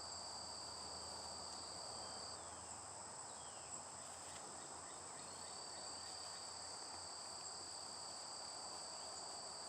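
Faint, steady, high-pitched trilling of insects, two trills at different pitches. The lower one pauses for a few seconds, from about two seconds in until about five seconds in.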